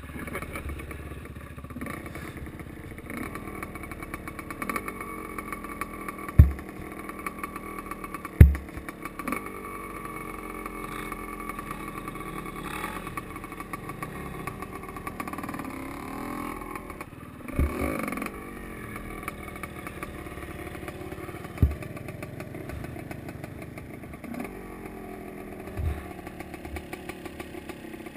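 Two-stroke enduro motorcycle engine (a Gas Gas EC 250) running close by, revving up and down between steady running, with several sharp thumps along the way.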